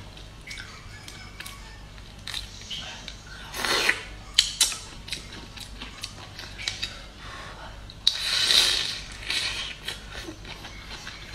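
Prawn shell being cracked and peeled by hand, with scattered sharp clicks and crackles. There are louder bursts about four seconds in and again about eight seconds in.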